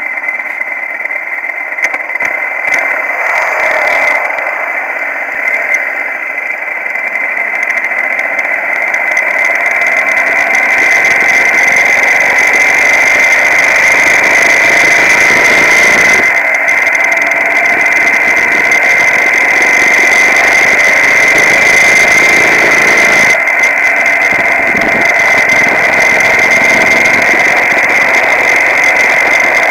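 Motorcycle engine running at road speed with wind rushing over a camera mounted on the bike, over a steady high-pitched whine. The noise builds over the first ten seconds or so as the bike gathers speed, then holds steady.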